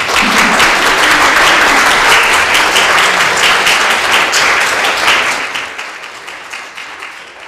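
Audience applauding: dense clapping for about five seconds that then thins out and fades.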